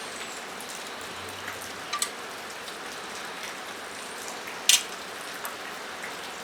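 Steady rain hissing on a metal roof overhead, with a few short sharp clicks over it, the loudest about three-quarters of the way through.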